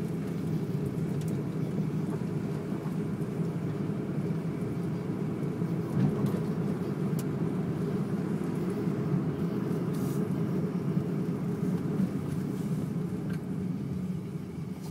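Car engine idling steadily, with a few light knocks and clicks, the loudest about six seconds in.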